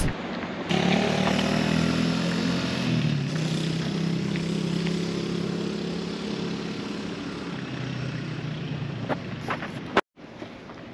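A motor vehicle's engine running close by. It starts about a second in, drops in pitch about three seconds in, and slowly fades before cutting off abruptly near the end.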